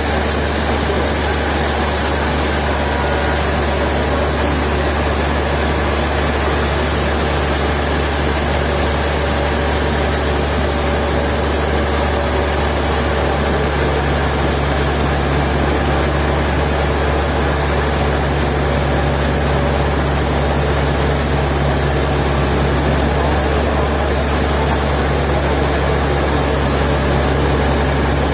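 Heavy sawmill machinery running steadily with a deep, constant engine hum; a second low tone comes in about halfway through.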